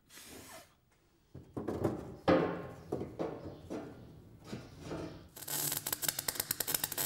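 A metal fuel filler neck scraping and rubbing in uneven strokes as it is pushed into a freshly cut hole in a fiberglass bonnet. About five seconds in, a wire welder starts a dense, steady crackle as it welds the neck back onto the steel fuel tank.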